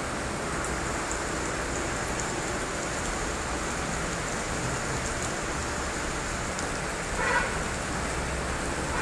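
Steady rain falling, with scattered small drips. About seven seconds in, a brief pitched sound rises above the rain.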